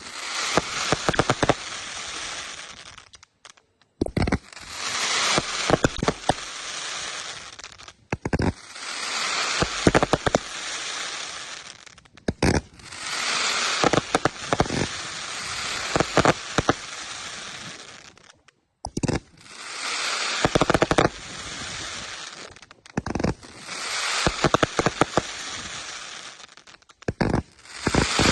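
Fireworks going off in a run of short takes a few seconds long, each a dense hissing spray peppered with sharp crackling pops, and each cut off abruptly before the next begins.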